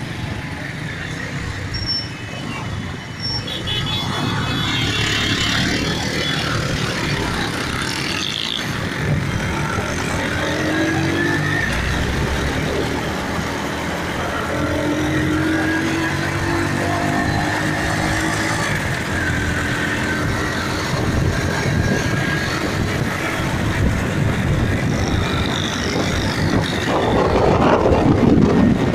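Motorcycle engine running while riding in traffic, with road noise and other vehicles around; the engine is fed from a home-made HHO (hydrogen) kit bubbler into its carburettor. A louder rush of wind and traffic comes near the end.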